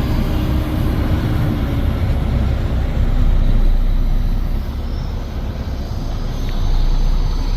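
Loaded semi-truck pulling a gondola dump trailer running at road speed, a steady low engine and road rumble heard from the cab.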